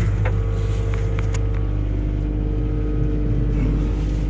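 Excavator's diesel engine idling steadily, a constant low rumble with a few light clicks in the first second and a half.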